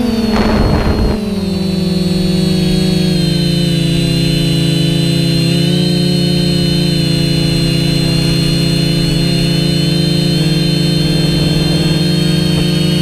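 Cinetank Mk2-L quadcopter's four motors and propellers humming, heard from its onboard camera. The pitch drops about a second in as the motors slow, with a short rush of air noise, then holds steady.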